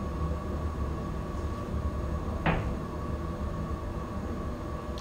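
Steady low hum of running equipment with one short, sharp knock about halfway through.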